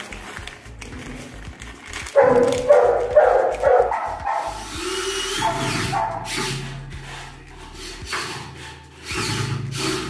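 A cordless drill runs twice, once from about four and a half to eight seconds and again near the end, drilling into the edge of a wooden door where the hinges are fitted. Before it, about two seconds in, come several loud short sharp sounds.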